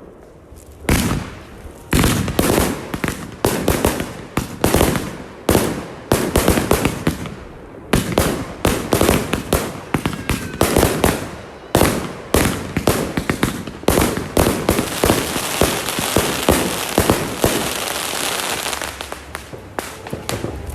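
New Year's Eve fireworks going off: a rapid series of sharp bangs and pops, thickening from about two-thirds of the way in into dense, almost continuous crackling that thins out near the end.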